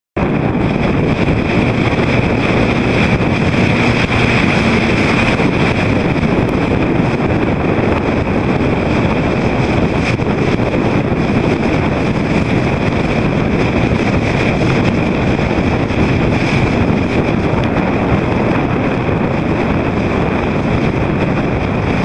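Loud, steady wind buffeting the microphone, with waves and water noise beneath it.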